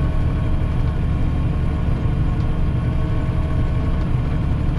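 Massey Ferguson tractor's diesel engine running steadily under load, heard from inside the cab, as it pulls a wheeled harrow across the field: a constant low drone with a faint steady whine above it.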